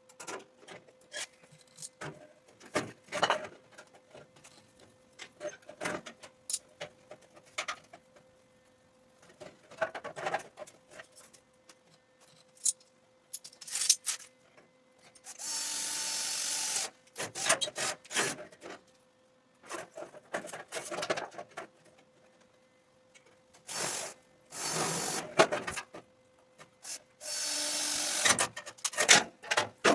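Garage metalwork: scattered clanks and taps of metal parts and tools being handled, with four bursts of a power tool running for a second or two each in the second half.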